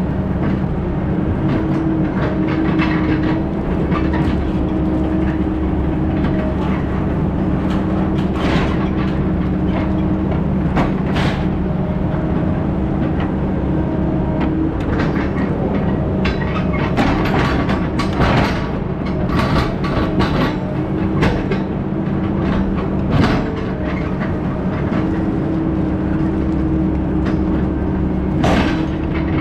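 A heavy diesel engine running steadily at a constant pitch, with frequent rattles and clanks of loose metal over it, most of them bunched a little past the middle.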